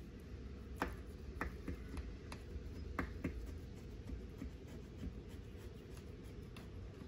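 Knife blade clicking and scraping against the side of a round metal baking pan as it is run around the edge of a baked bread pudding to loosen it. There are several sharp clicks in the first few seconds, then lighter scraping.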